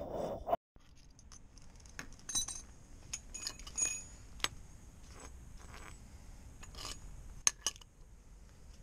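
Small metal hand tools being handled and set down on brick paving: scattered light clinks and clicks from a ratchet and the metal head of a strap-type oil filter wrench. A brief loud rush of noise cuts off suddenly about half a second in.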